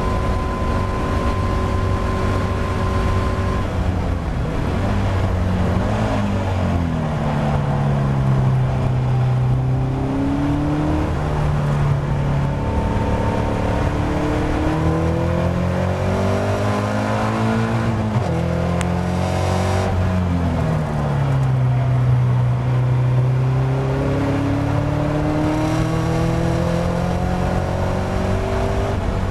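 Caterham Academy race car's 1.6-litre Ford Sigma four-cylinder engine at racing speed, heard from the open cockpit. The note holds high, drops in steps on braking and downshifts into slow corners about 5 and 18 seconds in, then climbs again under hard acceleration through the gears.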